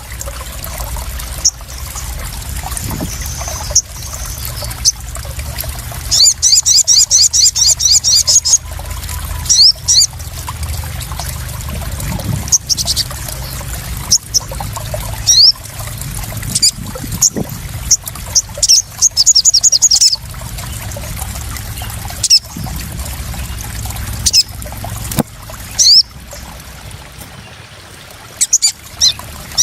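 Crimson sunbird calls over a steady trickle of splashing water: several fast, high rattling trills and scattered single sharp chirps.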